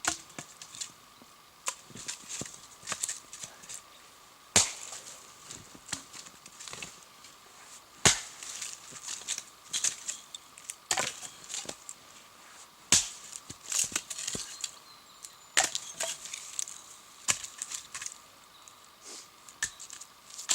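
Dry wood being chopped and snapped: irregular sharp cracks and splintering, with a few louder strikes among many smaller snaps.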